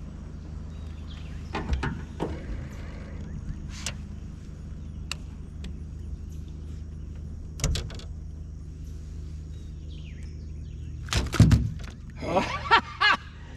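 Scattered knocks and thumps in a fishing boat over a steady low hum, the loudest pair of thumps coming near the end.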